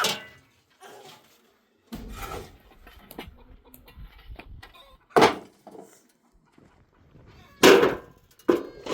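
Livestock bleating a few times, short separate calls with quiet between them.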